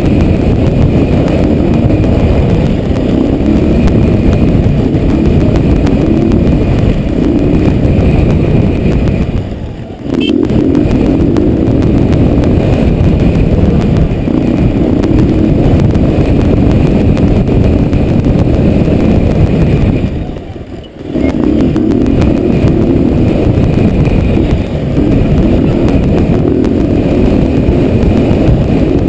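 A motorcycle being ridden through town, heard from a camera on the rider's helmet: the engine running under a heavy, steady rush of air noise. The noise drops away briefly twice, about ten seconds in and again about twenty-one seconds in.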